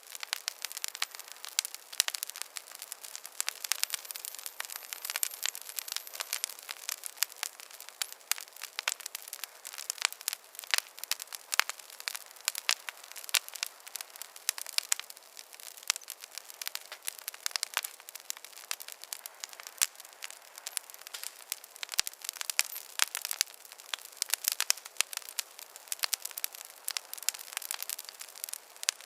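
Wood fire crackling in a fireplace: a steady run of sharp, irregular pops and snaps over a soft hiss of burning.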